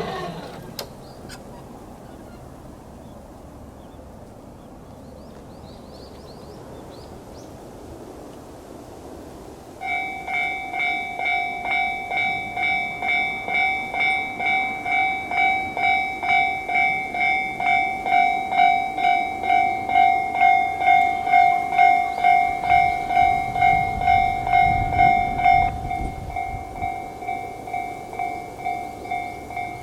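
Japanese level-crossing electronic warning bell starting about a third of the way in and ringing in a steady, even pulse of about two strikes a second, the signal that a train is approaching. Before it starts there is only quiet outdoor ambience. Near the end a low rumble passes and the bell carries on more quietly.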